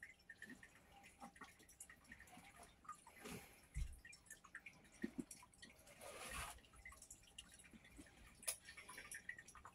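Faint sounds of two dogs wrestling in play on blankets: scattered small clicks and ticks, a soft thump about four seconds in, and a couple of short rustles.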